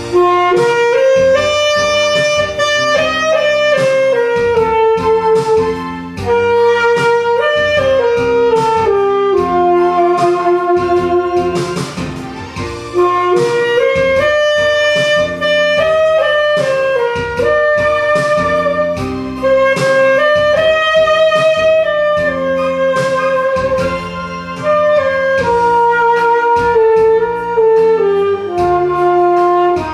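Instrumental music: a saxophone plays a slow, sustained melody line over a backing track with piano and held chords.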